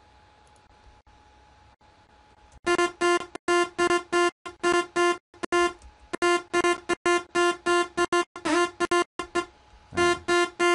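Synthesizer riff starting about two and a half seconds in: a single bright, buzzy note repeated in short staccato hits, about three to four a second, with a couple of notes sliding upward in pitch. It is a pattern being looped back in a music-production session while its notes are edited.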